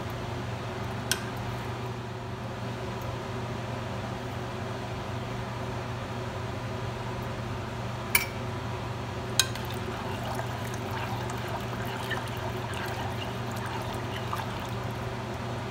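A metal spoon stirring tomato rasam in a metal saucepan, with liquid sloshing and three sharp clinks of the spoon against the pan. A steady hum runs underneath.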